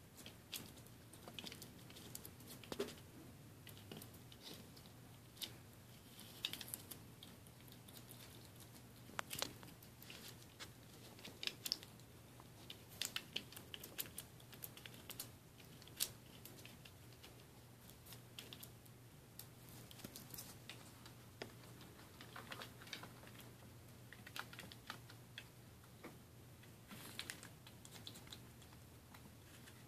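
A pet striped skunk biting and chewing a small apple: faint, irregular crisp crunches and clicks of teeth on the fruit, over a low steady hum.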